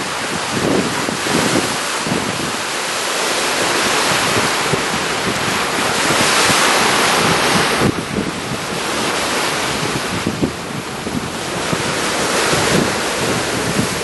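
Wind buffeting the microphone on the deck of a motor yacht under way, over the rush of sea water along the hull and its wake. The hiss swells for a few seconds around the middle.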